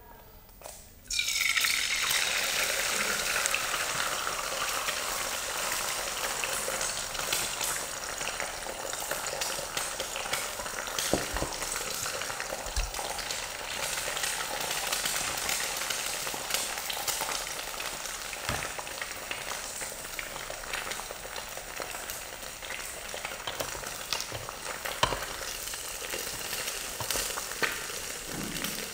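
An egg cracked into hot oil in a nonstick pan: a couple of faint shell clicks, then a loud sizzle bursts up about a second in as the egg hits the oil. It keeps frying with a steady sizzle and scattered pops, easing off slightly over time.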